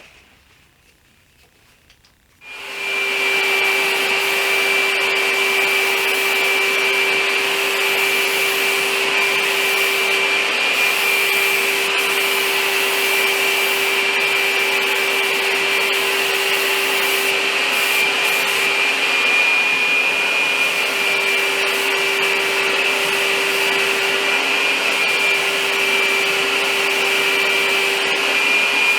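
Paint sprayer switching on about two and a half seconds in and then running steadily while spraying black paint: a constant hiss with a steady hum and a high whine.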